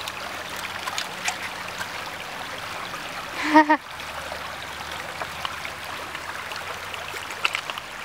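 Shallow creek water trickling over stones, with many small ticks and splashes. A brief voice sound about three and a half seconds in.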